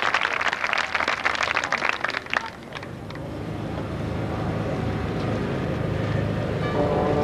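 Crowd applause dying away about two and a half seconds in, followed by a low rumble that swells steadily louder; near the end a marching band comes in with a sustained brass chord.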